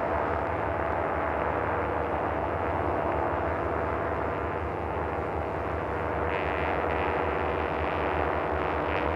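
Background music: a steady, droning synthesizer pad that grows a little brighter about six seconds in.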